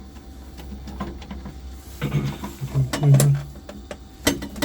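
A few sharp clicks and knocks of hands working the wiring connections inside a boiler, over a steady low hum, while a loose connection behind an intermittent heating fault is hunted for. A brief mumbled voice comes about halfway through.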